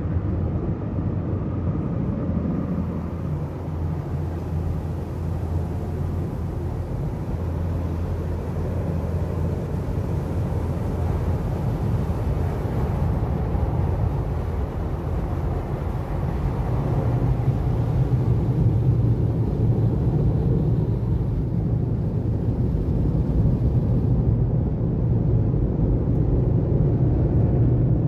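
Automatic tunnel car wash heard from inside the car: a steady rush of water spray and spinning cloth brushes against the body and glass, over a low machinery rumble. The rumble grows a little louder about two-thirds of the way through, and the hiss of the spray fades near the end.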